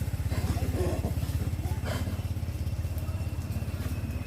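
An engine running steadily at idle, a low even pulsing throughout, with a few brief higher-pitched sounds over it in the first two seconds.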